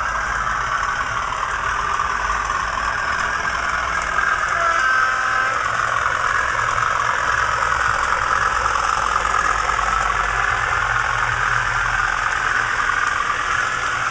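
Class 31 diesel locomotive engine sound from a model railway DCC sound decoder, played through a small standard speaker and a bass reflex speaker. The engine runs steadily as the model loco moves along the track.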